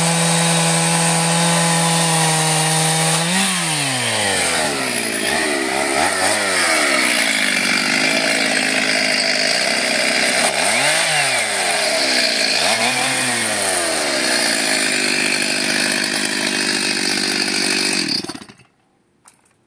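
Stihl two-stroke chainsaw at full throttle cutting through seasoned oak logs. About three and a half seconds in the throttle is released and the engine note drops. It is then blipped up and down several times, runs steadily at a lower speed, and stops abruptly near the end.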